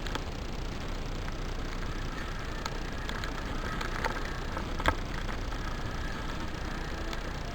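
Steady background noise with a few short, sharp clicks, the loudest about five seconds in.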